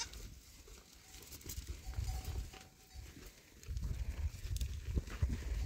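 Goats milling and jostling in a pen, with bursts of low rumbling noise about two seconds in and again from near the fourth second.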